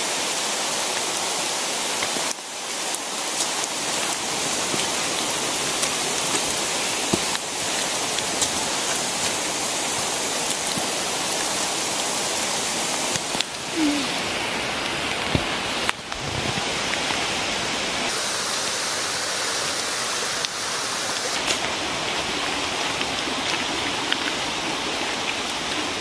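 Steady rushing hiss of rain and running water, with a few brief knocks scattered through it.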